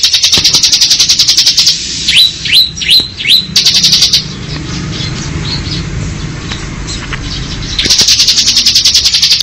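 Bar-winged prinia (ciblek) singing its 'ngebren' song: a rapid, drill-like trill of evenly repeated high notes. About two seconds in it breaks into four short downslurred notes, falls quiet for a few seconds over a low rumble, then the trill resumes near the end.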